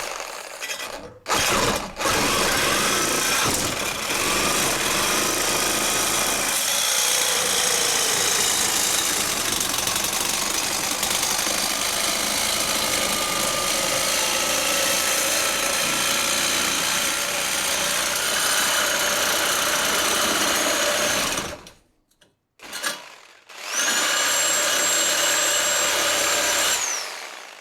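Power cutting tool slicing through exhaust pipe, running steadily with a wavering whine for about twenty seconds before stopping. It starts again near the end for a few seconds, with a high whine that drops off as it winds down.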